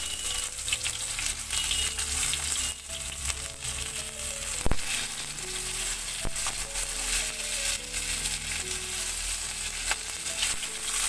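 Silver carp steaks sizzling as they shallow-fry in hot oil in a metal kadai, with a metal spatula scraping and knocking against the pan as the pieces are turned; one sharp knock comes about halfway through.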